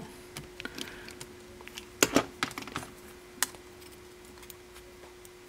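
Light clicks and ticks of a screwdriver and a tiny screw against the sheet-metal chassis of a Ford 6-disc CD changer mechanism as the screw for a disc-gripping finger is removed, with the sharpest click about two seconds in. A faint steady hum underneath.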